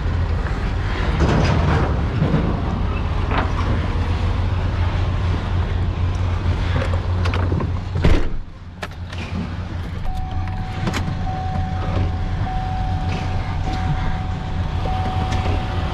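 Truck engine running as the truck backs up, heard from inside the cab with a steady low rumble. A sharp knock comes about eight seconds in, after which the rumble drops. A thin steady tone sounds through the last six seconds.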